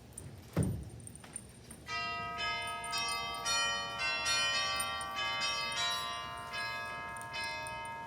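A dull thump, then from about two seconds in, bells ringing: a quick run of struck notes at several different pitches, each ringing on and overlapping the next.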